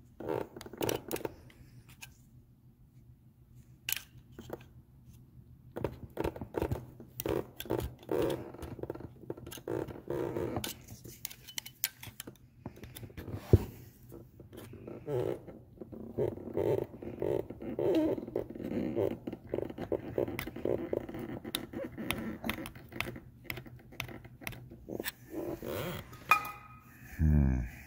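Hand tools clicking, tapping and scraping against a John Deere 4440 water pump as its cover, stuck to the housing by gasket glue, is worked loose. The knocks are irregular, with a stretch of quicker, even scraping strokes in the middle.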